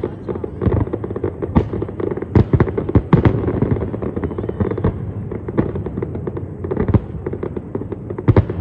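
Aerial fireworks bursting: a dense, irregular string of bangs and crackles, with the loudest booms about a second and a half in, around two and a half to three seconds in, and near the end.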